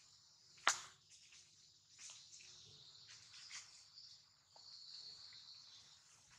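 Insects buzzing steadily in a high pitch, swelling a little near the end. A sharp click stands out about a second in, with a few fainter clicks scattered after it.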